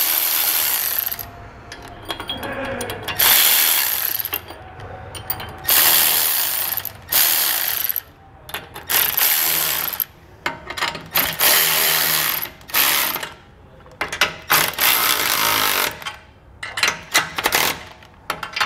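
Cordless electric ratchet with a 9/16-inch socket tightening the flange nuts of an axle clamp bracket. It runs in repeated bursts of about a second each, then gives several short blips near the end as the nuts are brought down evenly.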